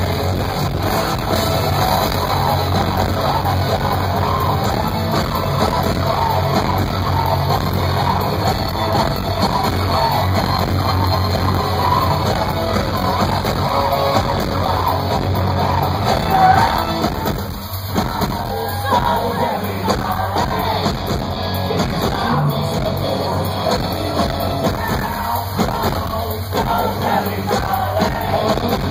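Live rock band playing loud music with a singer shouting and singing, heard from the crowd in a large, echoing hall. The sound dips briefly about two-thirds of the way through, then carries on.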